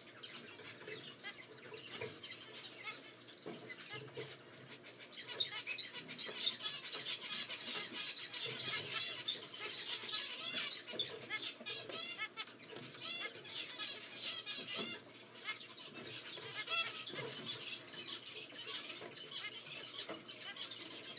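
Newly hatched zebra finch chicks begging in the nest: a fast, unbroken stream of thin, high cheeps, with light rustling of the nest grass. The cheeping peaks louder and higher about eighteen seconds in.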